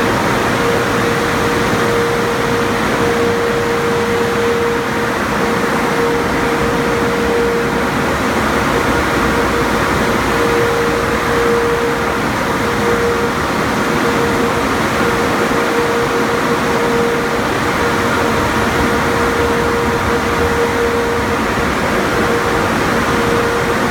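Bank of AVW car wash dryer blowers running at full blast, a loud steady rush of air with a constant whine running through it.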